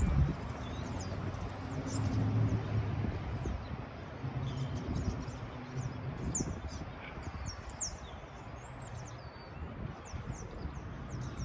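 Small birds chirping busily, many short quick high chirps, over a low rumble of engines with a faint steady hum that comes and goes.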